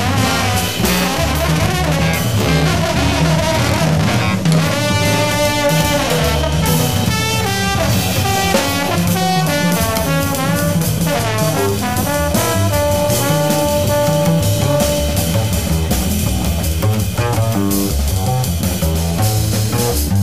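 Jazz quintet playing: saxophones and trombone trading horn lines, some notes held long, over double bass and a drum kit.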